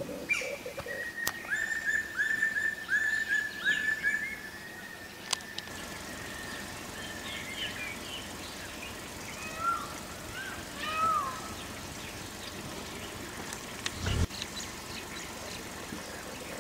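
Forest birds calling: a quick series of about seven repeated down-curving notes in the first few seconds, then scattered chirps and whistles. A brief low thump comes near the end.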